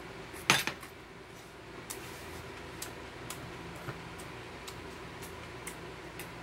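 Stainless metal chopsticks clicking against a bowl and glass food container: one sharp clack about half a second in, then light scattered ticks.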